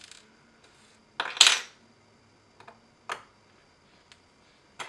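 Small metal tools clinking and tapping on a wooden workbench: a loud metallic clink with a short ring about one and a half seconds in, then three lighter taps.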